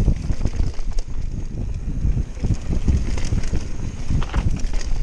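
Wind buffeting the action camera's microphone over the rumble of a Canyon Spectral full-suspension mountain bike's tyres on a dirt trail at speed, with irregular knocks and rattles as the bike goes over bumps.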